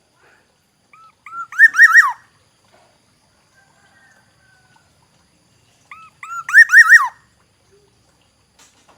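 Black-naped oriole giving two fluty whistled phrases about five seconds apart. Each is a few quick looping notes that end in a falling note.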